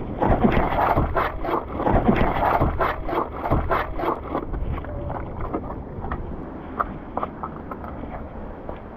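Footsteps scuffing and scraping over coastal rock, several a second for the first few seconds and then sparser, over wind noise on the microphone and the sea washing around the rocks.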